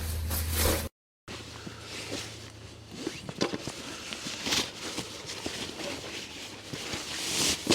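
Footsteps crunching irregularly on the frozen forest floor, with a low steady hum under them for the first few seconds.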